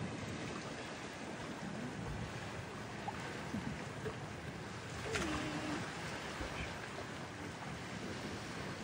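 Steady outdoor wash of wind and sea along the shore, an even rushing noise. A faint click and a short, faint falling tone come about five seconds in.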